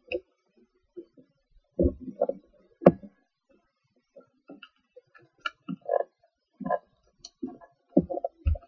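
A sheet of paper being folded and creased by hand on a wooden table: scattered short rustles and crinkles, with a sharp tap about three seconds in.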